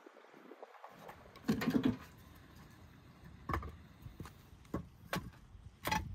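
Split firewood logs being handled and laid into a domed clay oven: a burst of wooden clatter about a second and a half in, then several separate knocks as logs are set down on the oven floor and against each other.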